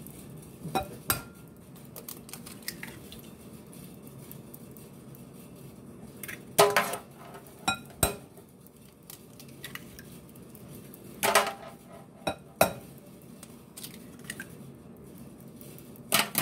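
Eggs knocked against the rim of a glass mixing bowl and cracked open one after another: a few sharp knocks in small groups several seconds apart, with shells set down in a stainless steel sink.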